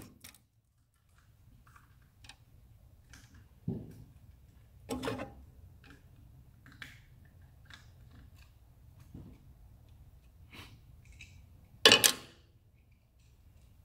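Scattered light clicks and knocks of small objects being handled and set down, with a louder clatter about twelve seconds in, over a faint steady low hum.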